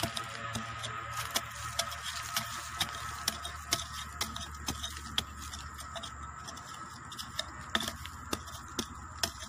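Light irregular clicks and scrapes, two or three a second, from a hand tool working leaf litter and soil at a metal-detector target, over a faint steady high tone.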